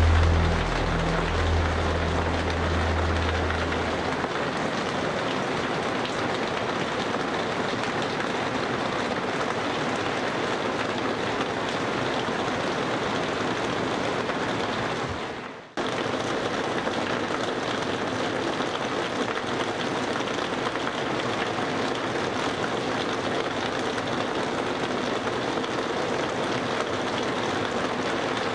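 Steady hiss of falling rain. It cuts out for a moment about halfway through and comes back unchanged.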